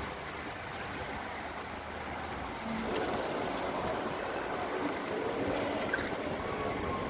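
Water jets of a large public fountain splashing into the basin: a steady rushing noise that grows louder about three seconds in.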